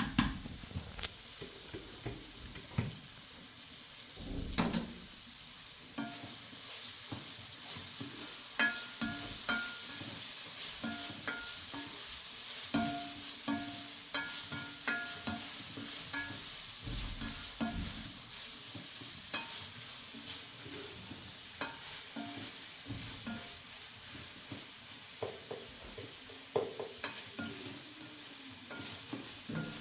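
A steady hiss with frequent small knocks and clinks, some of them briefly ringing.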